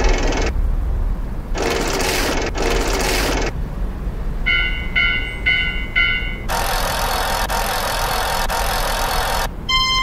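Edited train and railroad-crossing sound effects over a steady low rumble: short noise bursts, then four quick bell-like dings about two a second near the middle, then a long hiss lasting about three seconds.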